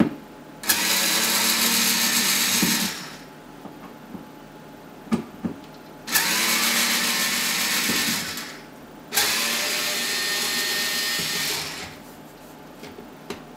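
Cordless electric screwdriver with a T15 Torx bit, running in three spells of two to three seconds each as it backs out the screws of a dishwasher pump cover. A few light clicks come between the runs.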